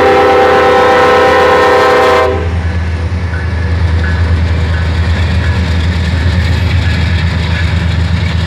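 Norfolk Southern diesel locomotive's air horn sounding a long chord-like blast that cuts off about two seconds in, then a steady low drone of the locomotive and its freight cars running past.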